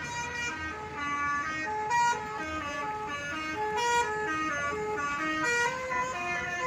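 Indonesian bus telolet horns playing melodic tunes: a string of short held notes stepping up and down in pitch, several sounding together.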